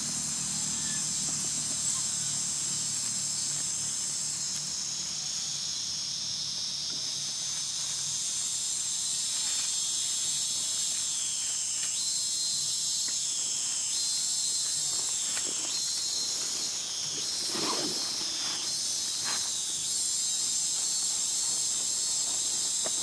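Insects buzzing in a steady, high, continuous chorus, with a few short sliding calls over it in the second half.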